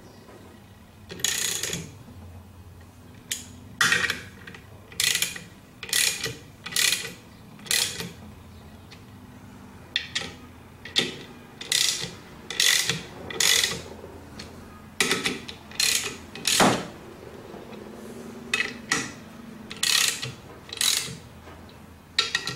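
Hand socket ratchet clicking in short strokes, about two dozen quick bursts in loose groups, as the clutch pressure-plate bolts are run down a little at a time before torquing.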